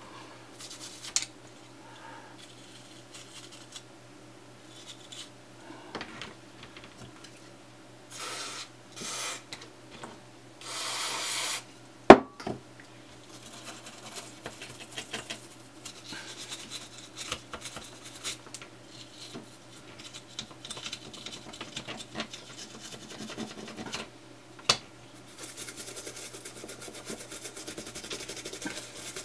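A toothbrush scrubbing a small circuit board to clean off the soldering, as a brisk, steady scratchy rubbing through the second half. Before the scrubbing come a few short hisses and one sharp knock near the middle, the loudest sound.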